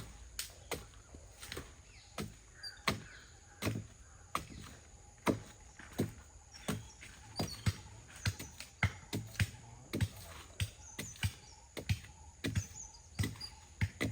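Repeated sharp knocks, irregularly spaced, roughly one to two a second.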